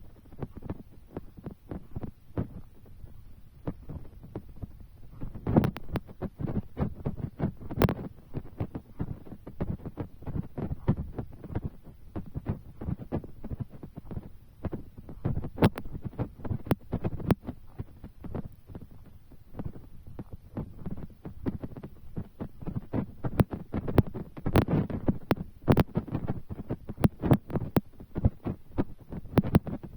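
Raindrops tapping irregularly and densely right at the microphone, mostly dull low thuds with a few sharper clicks, busiest about six and eight seconds in and again in the last third.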